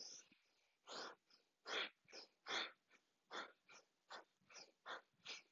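Faint, quick, rhythmic pranayama breathing: a woman's sharp breaths in and out, in time with a side-to-side torso sway. The first few come about one a second; later ones come quicker and fainter.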